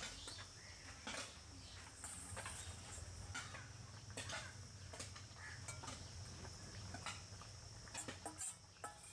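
Masala gravy boiling in an iron kadai over a wood fire, with freshly fried fish pieces in it and a spatula stirring: scattered pops and crackles over a faint steady high hiss.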